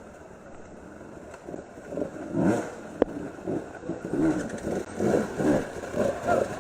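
Two-stroke enduro motorcycle engine revving up and down in short repeated revs, fairly quiet at first and coming in about two seconds in. A single sharp click about three seconds in.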